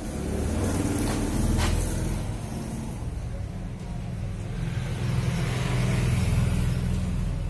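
Low, steady rumble of a running engine, with two sharp knocks about a second and a second and a half in.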